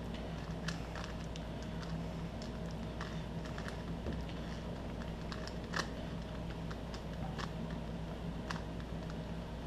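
Plastic Rubik's cube being twisted to scramble it: irregular clicks of the layers turning, with one sharper snap about six seconds in.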